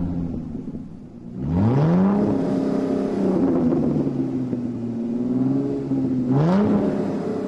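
Car engine revving: the pitch climbs sharply about one and a half seconds in and holds high and steady, then rises again in a second short rev near the end.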